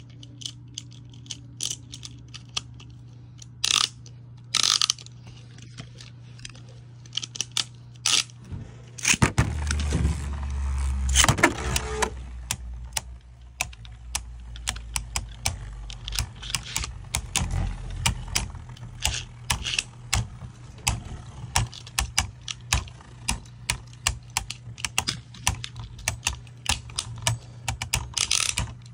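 Two Beyblade Burst tops, a left-spin Bloody Longinus and a right-spin Cho-Z Valkyrie, launched into a plastic stadium about nine seconds in, with a loud whirring scrape as they land. They then spin against each other, clashing over and over in a rapid run of sharp plastic clacks. Before the launch there are only scattered clicks.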